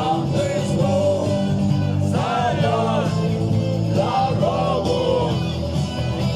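Rock song with a voice singing a melody over sustained instrumental backing.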